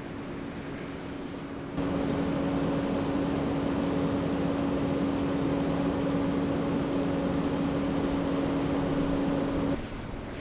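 An engine running at a steady speed: a constant hum with one held pitch. It jumps louder about two seconds in and cuts off abruptly near the end.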